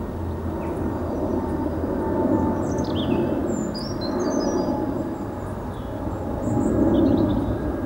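Outdoor garden ambience: a steady low rumble that swells near the end, with small birds chirping now and then.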